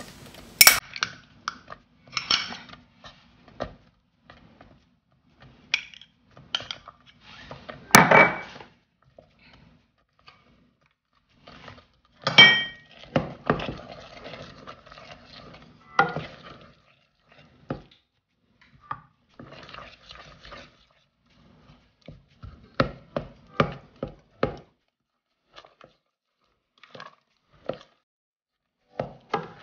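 Wooden spoon stirring a thick tomato and meat sauce in a stainless steel pot, with irregular knocks and scrapes of the spoon against the pot. The loudest knocks come about 8 and 12 seconds in.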